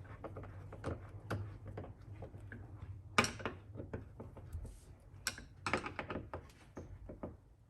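Hand Phillips screwdriver tightening screws into a wall-mount bracket: scattered small clicks and scrapes, with short louder scraping bursts about three seconds in and again between five and six seconds in. A faint steady low hum lies underneath.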